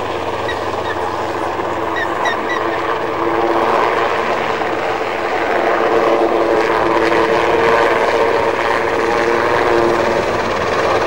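Propeller engine of an aerobatic display plane droning overhead, its pitch shifting slightly as it manoeuvres.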